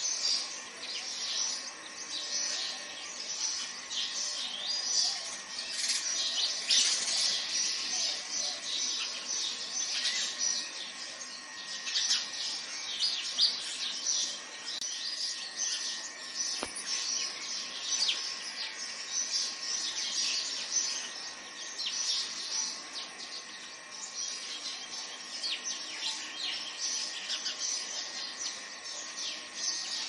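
Many birds chirping together: a dense, unbroken chorus of quick, high chirps and twitters.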